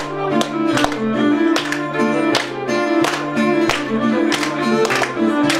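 Live instrumental music on guitar and violin: held violin notes over a steady rhythm of sharp strummed strikes, roughly two to three a second.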